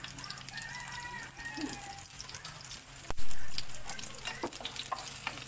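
Onion and garlic sizzling and crackling in hot oil in a frying pan, with a single sharp knock about three seconds in.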